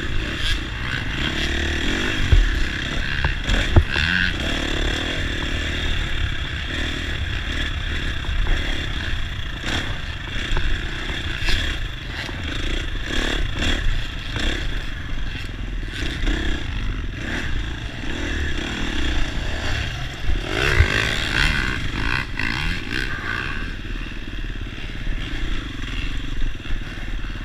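Dirt bike engine running hard around a motocross track, its revs rising and falling with the throttle, heard from a camera mounted on the bike or rider.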